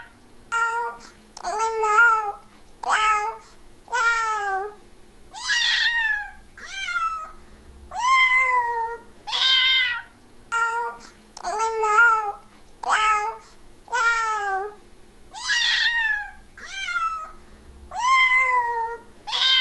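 Domestic cat meowing over and over, about one meow a second, each call rising then falling in pitch, some short and some drawn out.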